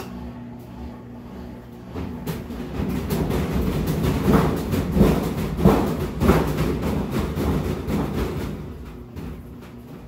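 Brastemp 14 kg top-load washing machine spinning up with an unbalanced load of rugs and floor cloths. The spinning grows louder, with a regular thud about one and a half times a second from the off-balance tub rocking on its suspension, then eases near the end.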